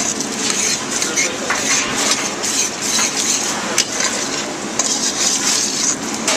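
A metal spoon stirring shallots sweating in lobster oil in a stainless steel saucepan, clinking and scraping against the pan in quick irregular strokes over a steady hiss.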